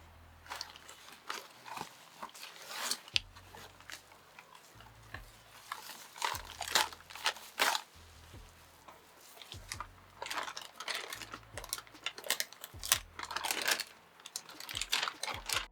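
Hands working computer parts into place: irregular sharp clicks and taps of plastic and metal with short rustling, under a low hum that comes and goes.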